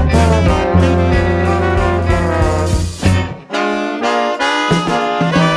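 Brass band playing an instrumental passage live: trumpet, trombone, alto and tenor saxophones over sousaphone and drums. About three seconds in the band breaks off for an instant, the horns play on alone without the bass for about a second, then the sousaphone and drums come back in near the end.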